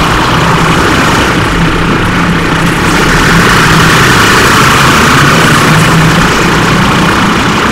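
Double-decker bus sound effect, heavily distorted into a very loud, harsh, steady noisy drone with a low hum underneath.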